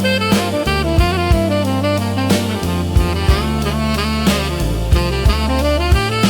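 Slow blues instrumental passage: a gliding melodic lead over held bass notes and a steady, slow drum beat, with no vocals.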